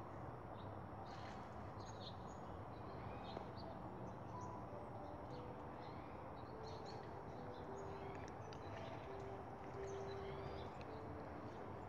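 Faint outdoor ambience with scattered short bird chirps.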